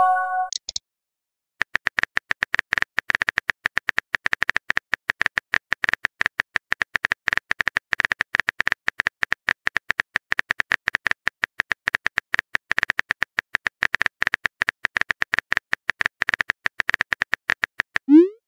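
Rapid, irregular clicks of a phone's on-screen keyboard as a long text message is typed out, many taps a second. A short message-sent chime sounds in the first second.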